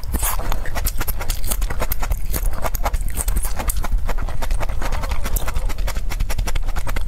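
Close-miked chewing of raw broccoli: a fast, steady run of crisp crunches and clicks.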